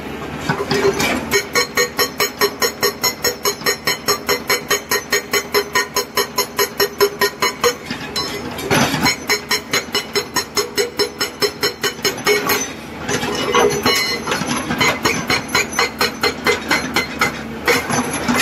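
SHS-81 hydraulic rock breaker on a Tata Hitachi EX200 excavator hammering rock: a fast, even train of chisel blows, several a second, that breaks off briefly twice and starts again.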